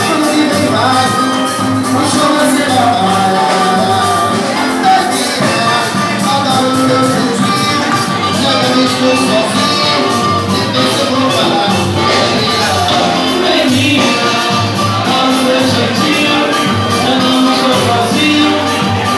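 Live band music with a steady percussion beat under pitched melody lines, played without clear sung words.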